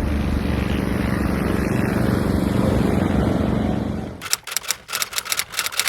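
Race car engines running out on a frozen-lake ice-racing track, a steady loud rumble. About four seconds in, the rumble drops away into a fast run of sharp crackles, several a second, which cuts off suddenly.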